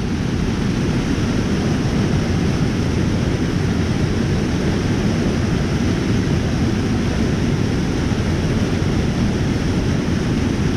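Steady rush of strong waterfall water, heaviest in its low rumble and even throughout.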